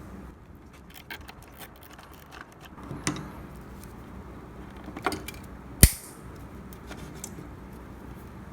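Light clicks and taps of small parts being handled during reassembly of the espresso machine, with a couple of louder knocks and one sharp snap about six seconds in.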